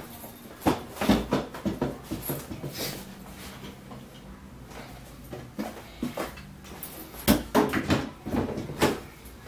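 Assembled wooden wardrobe drawers knocking and scraping as they are carried in and set down upright on a tile floor. There are two clusters of knocks and clatter, about a second in and again near the end, with a few softer bumps between.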